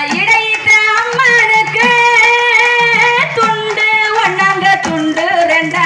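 Tamil festival song with a high singing voice holding long notes over a steady drum beat, played loud for the circle dance.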